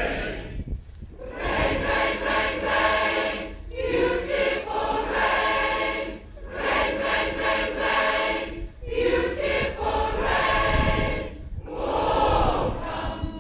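Large mixed choir of men and women singing, in phrases of about two seconds broken by short pauses.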